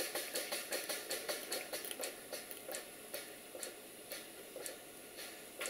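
Stuart Victoria model steam mill engine running with an even, regular beat, its slide valve timing correctly set. The beat slows about two seconds in, from about five a second to about two a second.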